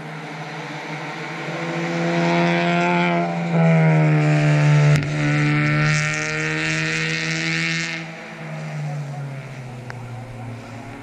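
Four-cylinder club race car passing under power, its engine note stepping down at gear changes about three and a half and five seconds in, with tyres hissing on the wet track, then fading away near the end.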